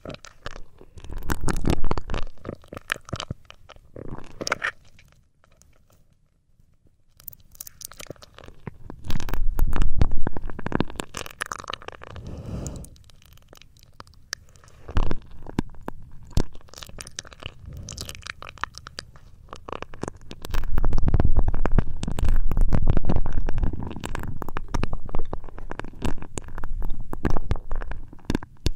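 Close rubbing and scratching on the ears of a binaural ASMR microphone, in uneven bursts with deep muffled thuds and a short silent pause about six seconds in.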